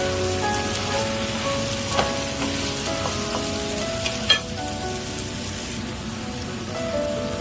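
Food sizzling in an oiled frying pan as it is stir-fried, with two sharp knocks of a utensil against the pan about two and four seconds in. Background music plays alongside.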